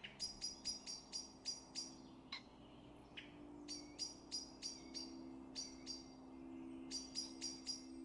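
A small bird calling in runs of short, high, sharp notes, about four a second, broken by pauses, over a faint low steady hum.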